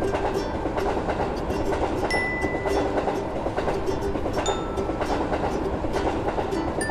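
Electric train running along the track: a steady rumble with rapid clickety-clack of wheels over rail joints and a few brief high squeaks.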